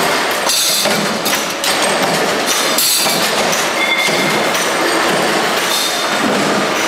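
A workshop full of flywheel-driven mechanical punch presses running: a dense, continuous machine din with irregular sharp strikes from the press strokes.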